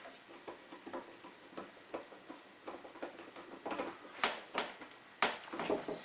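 Light, irregular clicks and ticks of a screwdriver working a light switch's green ground screw and of the switch and its metal mounting strap being handled. A few sharper clicks come in the last two seconds.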